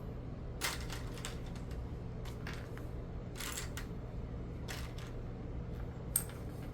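Plastic Lego pieces being handled and pressed together: irregular small clicks and rattles, the sharpest about six seconds in.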